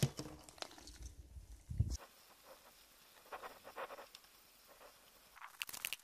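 Chestnuts being gathered into a woven bamboo basket: light rustling in dry leaves and grass with scattered small knocks, and a quick run of clicks near the end as nuts drop in. A couple of low thumps in the first two seconds.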